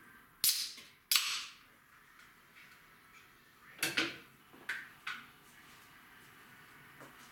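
A can of Coca-Cola being opened: a sharp crack from the ring-pull about half a second in, then a short hiss of escaping fizz. A few more sharp clicks and knocks follow around four to five seconds in.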